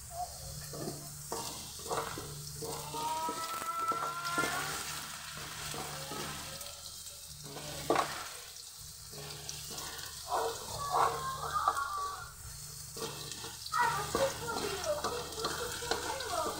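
Diced potatoes sizzling in hot oil in a metal wok while a wooden spatula stirs and scrapes them across the pan in irregular strokes. Around four seconds in there are a few brief rising squeaks.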